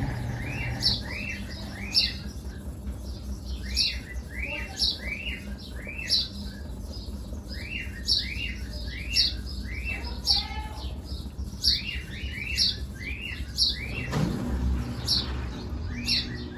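A small bird chirping over and over, about two notes a second: each is a short arched chirp with a sharp higher note, over a faint low hum.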